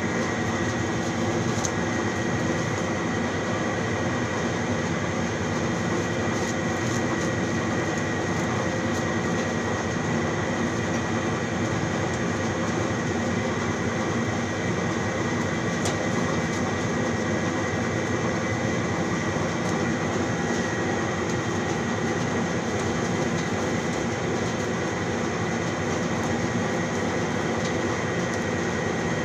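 A steady mechanical drone with a thin, high steady whine running through it, unchanging throughout.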